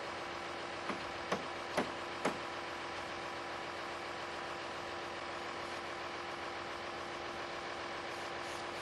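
Four hammer blows on wooden roof framing, about two a second, the first lighter. Under them an engine idles steadily.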